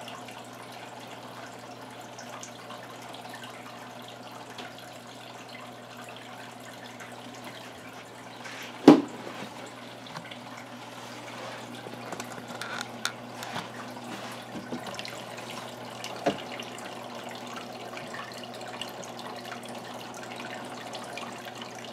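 Aquarium filter water trickling steadily over a low, steady hum. There is one sharp knock about nine seconds in, and a few faint clicks after it.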